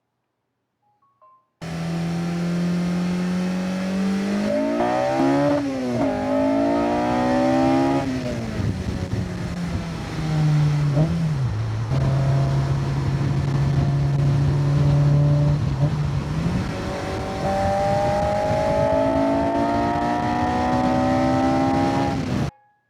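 Car engine running under load, its pitch holding steady, climbing about four and six seconds in and dropping back each time, then holding again and climbing slowly near the end. It starts and cuts off abruptly.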